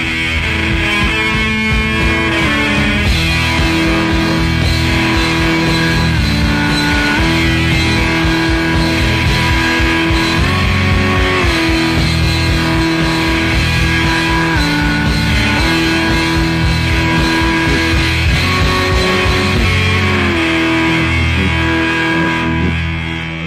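Loud rock music with electric guitar and bass: held notes that step and slide between pitches over a steady low pulse, cutting off abruptly at the end.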